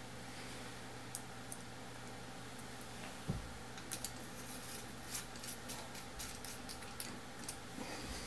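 Faint, scattered small metallic clicks and taps of a hex driver working screws into a multicopter frame's mounting plate, with a soft low thump about three seconds in.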